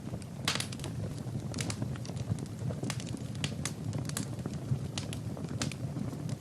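Wood fire burning in a fireplace: irregular crackles and sharp pops over a steady low rumble of the flames, one of the louder pops about half a second in.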